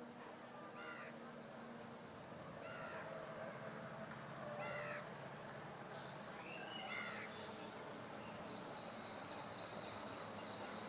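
A crow cawing four times, about two seconds apart, over a faint steady low rumble.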